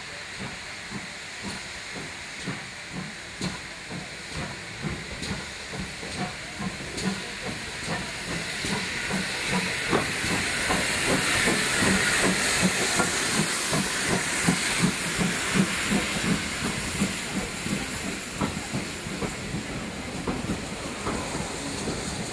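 Steam locomotive, a GWR 4575 class small prairie tank engine, working under steam: a steady run of exhaust chuffs with a rush of steam hiss. The sound grows louder to a peak about halfway through, then eases off a little.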